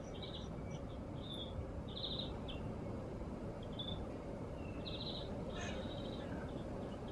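Small birds chirping, with short high calls and brief trills scattered throughout, over a steady low background rumble of outdoor noise.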